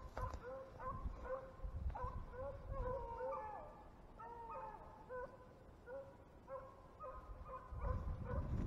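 Beagles baying while running a rabbit on its scent: a steady string of short, repeated yelps with a few longer drawn-out bay notes about three seconds in. Rustling footsteps through dry grass come up near the end.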